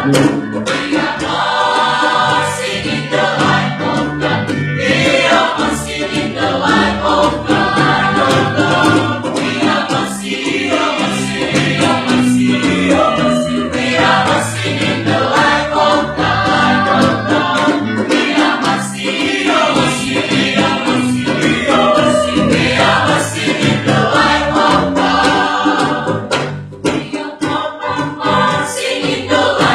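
Mixed choir of men's and women's voices singing a Christian choral piece.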